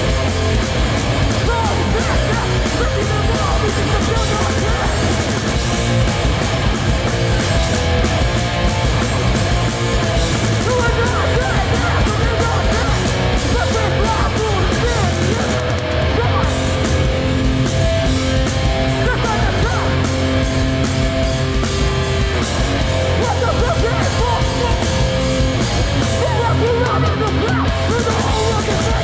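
Hardcore punk band playing live at full volume: distorted electric guitars, bass and drums running continuously.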